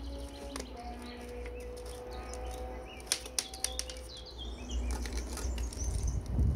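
A few sharp metallic clicks of steel pliers working rusty sheet steel, over a low steady hum, with short high chirps in the background. Louder handling noise comes near the end.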